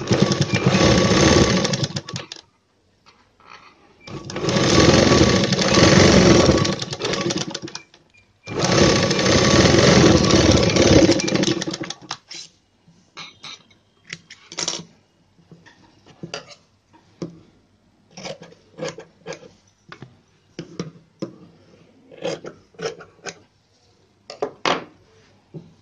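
Sewing machine stitching a fold in blouse fabric in three runs of a few seconds each, with short stops between. After that come scattered light clicks and rustles as the fabric is handled at the machine.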